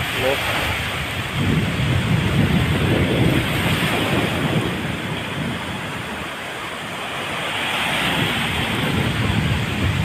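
Small waves washing onto a sandy shore, with strong wind buffeting the microphone in gusts.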